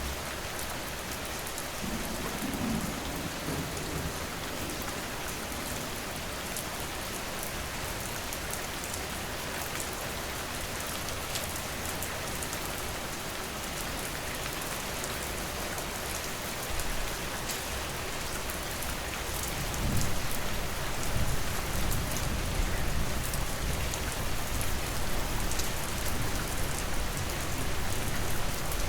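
Steady heavy rain falling, with low rumbles of thunder; the thunder grows louder about two-thirds of the way through and continues to the end.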